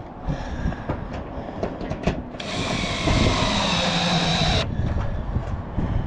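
Cordless DeWalt drill driving a roofing screw into corrugated metal roofing, its motor running for about two seconds starting a couple of seconds in. Wind rumbles on the microphone throughout, with scattered clicks and knocks.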